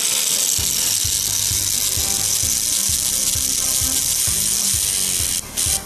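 Plarail toy locomotive's small electric motor and gearbox running steadily with a high whir, with regular clicks about two or three times a second; the motor has just been revived by a burst of high voltage. The running stops briefly near the end, then resumes.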